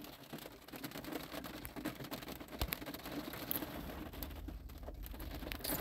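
Faint background hiss and room noise with a few soft clicks near the middle, and a low hum creeping up near the end.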